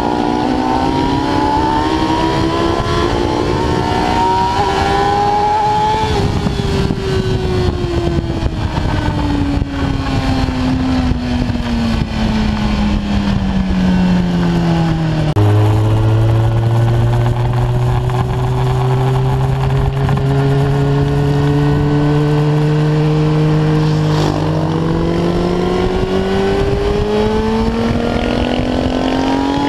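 Kawasaki ZX-10R inline-four sportbike engine heard from the rider's seat over wind rush: it revs up for the first few seconds, then its note falls steadily for about nine seconds as the bike slows, runs at a low, nearly steady pitch, and in the last five seconds climbs hard under acceleration, with a short dip for a gear change.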